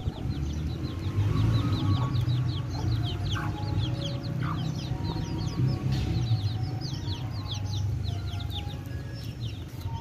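Young chicks peeping nonstop in a rapid stream of short, high, falling peeps, with a steady low rumble underneath.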